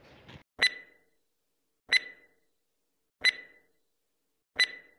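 Countdown timer sound effect: four short sharp clicks, each with a brief ringing tone, spaced about 1.3 seconds apart.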